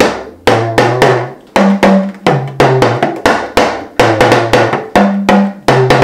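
Yoruba talking drum (gangan) struck with a curved stick in quick strokes, about four a second. It plays the rudiment phrase mi mi re re re do do re re re, with the pitch stepping between higher and lower notes as the drum's tension cords are squeezed and released.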